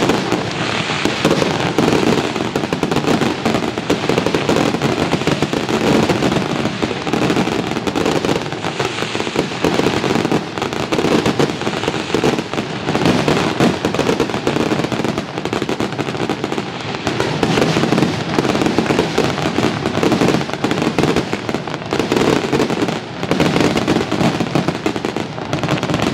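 Fireworks display: a dense, unbroken barrage of shell bursts and crackling.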